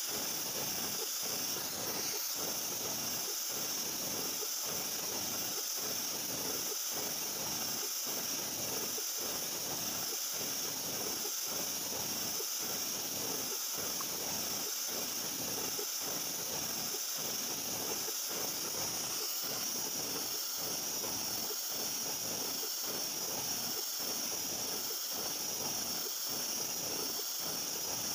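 CNC vertical milling machine cutting a metal block with a large end mill: a loud, steady high hiss, with a faint low pulse about once a second.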